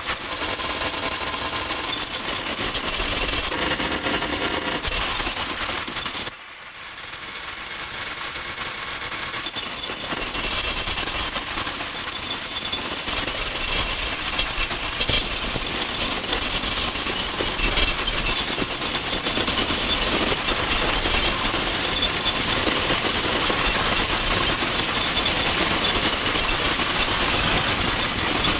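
Dense, loud noise texture from an experimental sound-design track, spread from deep to very high pitches. It drops away suddenly about six seconds in and swells back up over the next few seconds.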